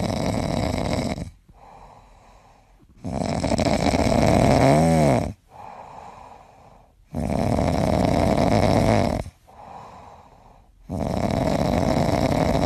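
Cat snoring loudly in its sleep: four long, noisy snores of about two seconds each, roughly every four seconds, with softer breaths between them.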